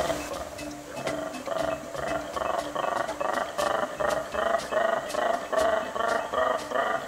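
Male black-and-white colobus (mantled guereza) giving its territorial call: a rapid run of pulses, about five a second, starting about a second in and growing louder.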